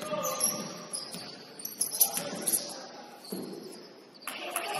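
Basketball game on an indoor court: the ball bouncing, short high squeaks and indistinct voices of players, with a sharp knock about two seconds in.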